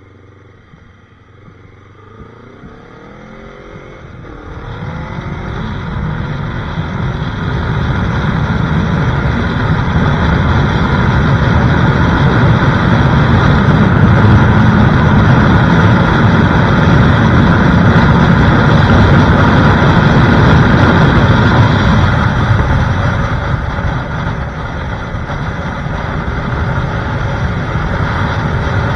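Yamaha YZF-R3 parallel-twin engine accelerating as the bike picks up speed to nearly 100 km/h, mostly buried under rushing wind on the microphone. The wind builds a few seconds in and stays loud, easing briefly near the end before rising again.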